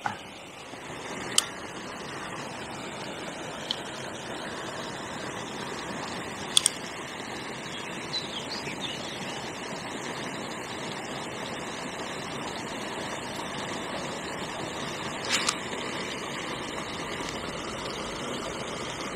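Steady rush of water spilling through a canal lock's overflow, with a few short sharp clicks over it.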